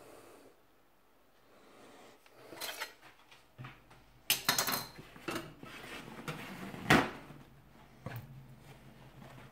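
Kitchen knife and plastic chopping board handled on a countertop: scattered knocks and clatter, a busy run about four seconds in and one sharp, loud knock about seven seconds in, with the rustle of paper towel pulled from a roll.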